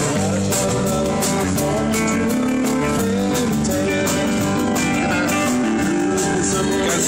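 Guitar-led band music played through a stage PA, with a steady beat and no break.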